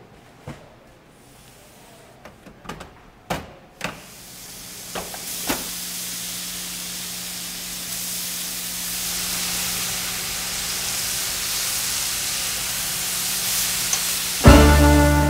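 A few sharp clicks and knocks, then bacon sizzling on a flat-top griddle, the hiss growing louder over about ten seconds. Loud string music comes in near the end.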